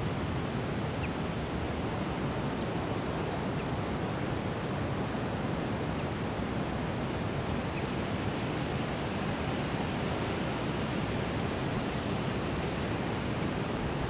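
Steady, even rushing noise, heaviest in the low end and unchanging throughout, with a few faint short high chirps.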